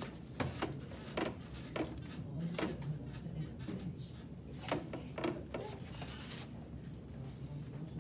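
White athletic tape being pulled off the roll and torn while an ankle is taped, heard as a series of short, irregular rasps and crackles.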